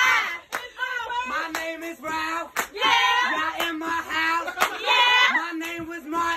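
Loud singing with long held notes, with a sharp hand clap about once a second keeping time.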